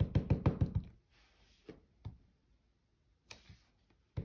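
Clear acrylic stamp block tapped quickly and repeatedly on an ink pad to ink the stamp, about six or seven taps a second, stopping about a second in. After that come a couple of soft rustles and a few light clicks.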